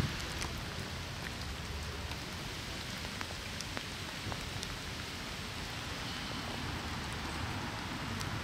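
Steady rain falling, with scattered single drops ticking close by, over a low rumble.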